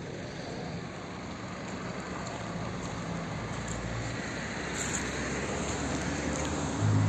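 Road traffic noise that grows gradually louder, with a low steady engine hum coming in strongly near the end.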